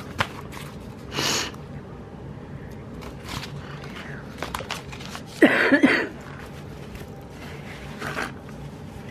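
Desk-top handling of paper sticker sheets and a planner: light taps, scrapes and rustles, with a louder short rustle a little past halfway.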